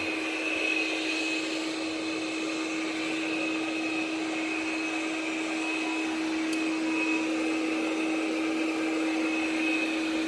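Robot vacuum cleaner running steadily as it vacuums and mops up spilled flour: a constant motor hum with a high whine above it.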